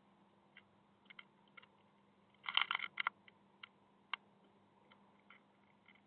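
Great spotted woodpecker tapping and pecking at the wood inside a nest box: scattered sharp single taps, with a quick burst of louder ones about two and a half seconds in.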